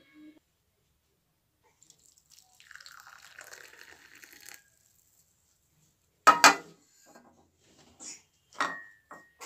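Hot spiced tea decoction poured from a saucepan through a strainer into a cup, a thin stream of liquid lasting about two seconds. Then a loud knock of kitchenware, followed by a few lighter clinks near the end, one of them briefly ringing.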